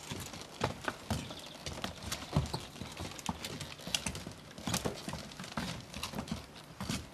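Hooves of laden pack animals clip-clopping on a cobbled stone path as two of them walk past: an irregular string of sharp hoof knocks.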